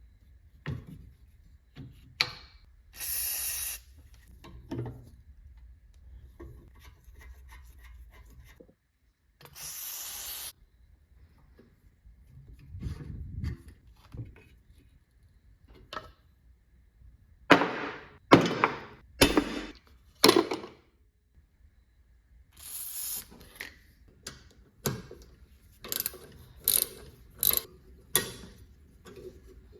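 A vintage Delta Homecraft band saw being taken apart with hand tools: scattered metal clicks, rubbing and ratcheting, with two short hisses early on and a run of loud knocks about two-thirds of the way in.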